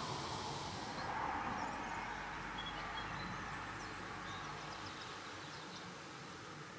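Reed warbler calling faintly: a few brief high chirps and a quick run of rapid ticking notes, over a steady background hiss.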